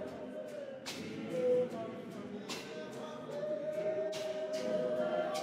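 A mixed church choir singing a cappella in harmony: held, sustained chords, with short sharp accents marking a slow beat.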